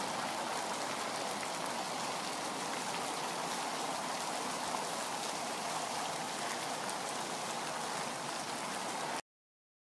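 Fountain with many small jets falling into its pool: a steady splashing patter of water. It stops abruptly near the end.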